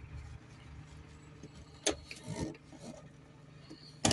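Plastic quick-connect fuel line coupling being worked off the top flange of a diesel in-tank fuel pump by hand: rubbing and scuffing of plastic, with a sharp click about two seconds in and a louder one at the end.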